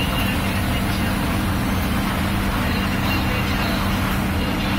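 Coach bus engine and road noise heard from inside the moving bus cabin: a steady drone with a constant low hum under it.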